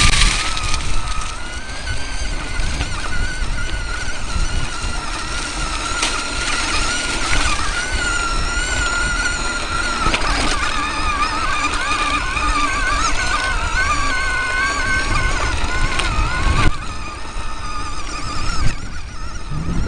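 Electric off-road vehicle's motor whining as it drives over a rough trail, the pitch wavering up and down with speed, over the rumble and rattle of the ride. A sharp knock comes near the end, after which the whine drops away.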